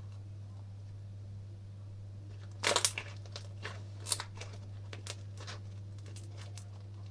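Homemade slime being squeezed and poked by hand, giving a quick run of sharp crackles and pops about two and a half seconds in, another about four seconds in, then scattered small clicks, over a steady low background hum.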